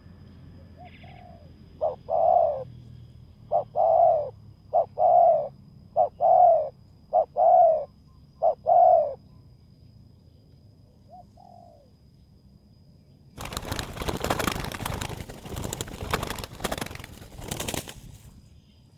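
Spotted dove cooing: about six phrases over some seven seconds, each a short note followed by a longer coo. Later comes a loud burst of rustling noise lasting about four seconds.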